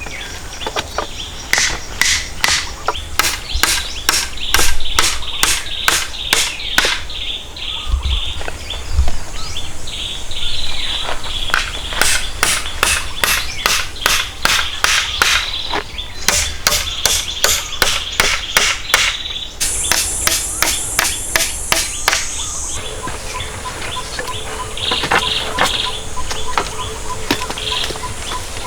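Rapid, evenly spaced hand-tool strikes, about two to three a second, in two long runs with a pause between. They stop about two-thirds of the way in, leaving birds chirping.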